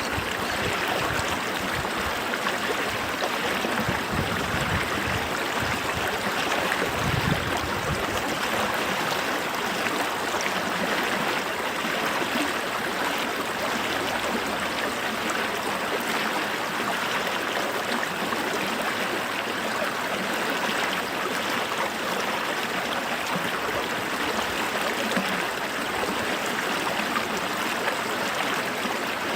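A small creek running steadily, an even rush of flowing water with no pauses.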